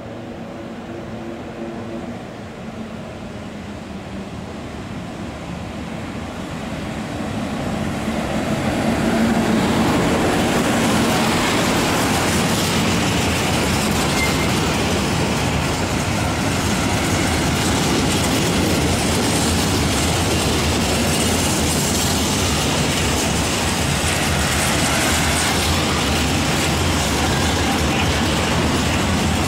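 A PKP Cargo freight train behind an EU07 electric locomotive approaches, growing steadily louder over the first nine seconds. A long rake of steel open goods wagons then rolls past close by with a continuous loud rumble and clatter of wheels on the rails.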